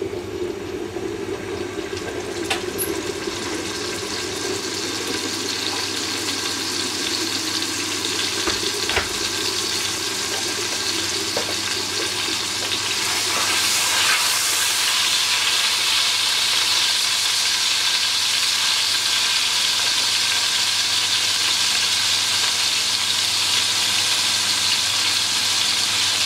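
Beef sealing in hot oil in a cast iron pot, a steady sizzle that grows clearly louder about halfway through.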